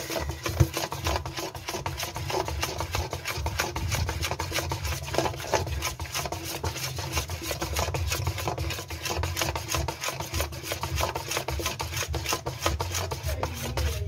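A hand mixing thick, wet pholourie batter in a stainless steel bowl: a steady, quick run of rubbing strokes against the bowl as the batter is worked soft.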